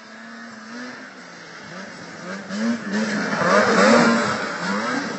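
Racing snowmobile engine revving up and down repeatedly as the sled approaches and passes close, loudest about four seconds in.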